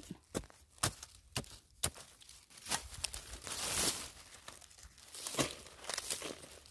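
A spade chopping and scraping into dry soil and leaf litter, throwing dirt: several sharp strikes in the first three seconds, a longer scraping rush of soil a little past halfway, and another strike later on.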